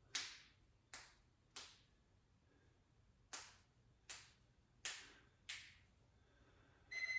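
Seven short, sharp breaths forced out through the mouth, three then four after a pause of about a second and a half, the hard breathing of a man working through a set of lat pulldowns.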